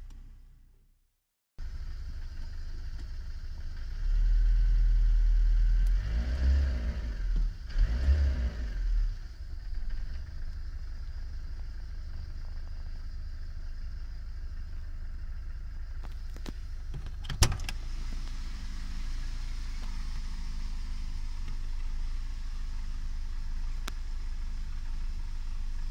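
Inside the cabin of a Citroën BX 14 RE driving at around 100 km/h: steady engine and road noise. The engine is louder and wavering in pitch between about four and nine seconds in. A single sharp click comes near the middle. The sound starts after a moment of silence.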